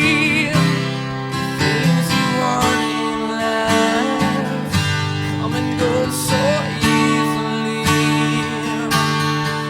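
Music: a song's instrumental passage between sung lines, with strummed acoustic guitar over sustained notes.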